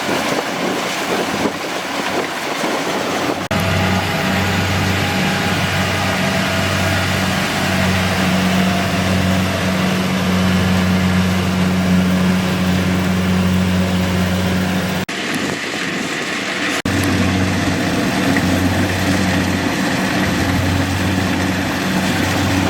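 Kubota DC-70G PRO rice combine harvester's diesel engine running steadily with a low hum. The hum comes in louder and fuller about three and a half seconds in, drops away briefly about fifteen seconds in, then returns.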